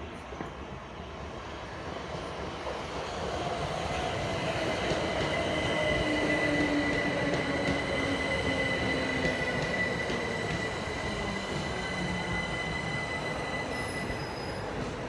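Class 377 Electrostar electric multiple unit arriving and braking alongside the platform. Its motor whine falls steadily in pitch as it slows, over a thin, steady high squeal and wheel rumble that swell to their loudest about halfway through, then ease slightly.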